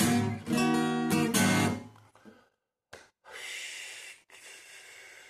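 Acoustic guitar strummed in full chords, the last chord ringing and fading out about two seconds in. After that come a couple of soft clicks and a faint hiss.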